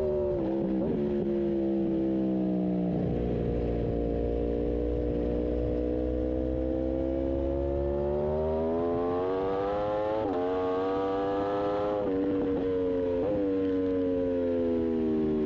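Aprilia RSV4 superbike's V4 engine on track: its pitch falls at first, then climbs steadily under acceleration, with a few sharp brief dips in the second half at gear changes, and falls away again near the end.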